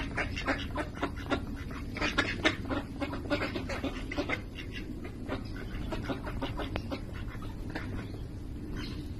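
A small group of domestic ducks quacking in short, quick calls as they forage on grass. The calls come thickly in the first half and grow sparser after about five seconds.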